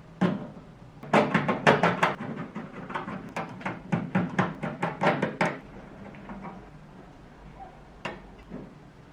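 A quick run of sharp taps or knocks, about four or five a second for some four seconds, with a few scattered single knocks after it.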